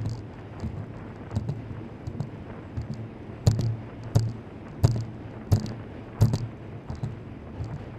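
Helmet-camera sound of a fixed-gear bicycle ride: a steady low wind-and-road rumble with a sharp click about every 0.7 seconds, loudest around the middle.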